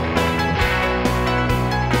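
Background music: a guitar track with a steady beat.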